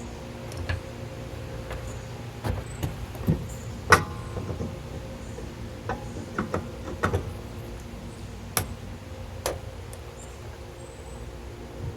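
Sharp metal knocks and clanks from a heavy steel backhoe being shifted on jacks and blocks, about a dozen scattered over several seconds, the loudest about four seconds in. A steady low machine hum runs underneath.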